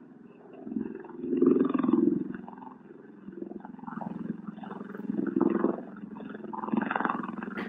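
Bell Boeing V-22 Osprey's twin proprotors in helicopter mode: a deep throbbing drone with rapid blade pulses, swelling and fading in loudness several times. A single sharp click comes near the end.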